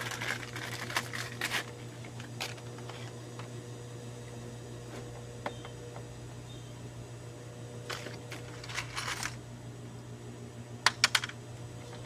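Scattered light clicks and plastic rattles from a car's plastic front bumper cover and its fasteners being handled and fitted by hand, with a quick run of sharper, louder clicks near the end. A steady low hum runs underneath.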